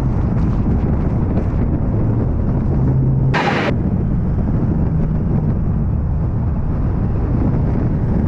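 Ford Bronco Sport being driven: a steady low engine and road rumble, its engine note rising slightly for a second or so, broken by a brief sharp burst about three and a half seconds in.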